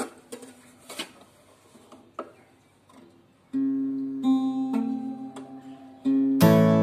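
Hollow-body archtop guitar: faint taps and string handling at first, then from about halfway in single notes plucked and left to ring, and near the end a loud strummed chord.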